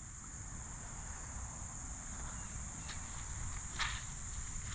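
Steady, high-pitched chorus of insects, crickets by their sound, shrilling without a break. A couple of faint clicks come about three and four seconds in.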